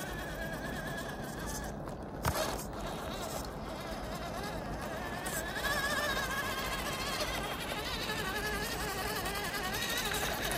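The electric motor and gears of a 1/18-scale RC crawler whine, the pitch wavering up and down. There is one sharp knock about two seconds in.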